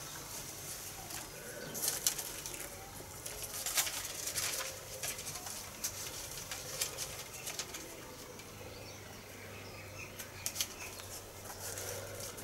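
Paper stencil rustling and crackling as a gloved hand lifts it, folds it back and smooths it flat on the board, in irregular short bursts.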